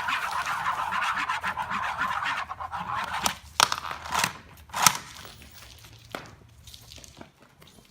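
Kinetic noise-making objects: a dense, buzzy rattle for about three seconds, then about four sharp knocks, the last the loudest, then only a few faint clicks.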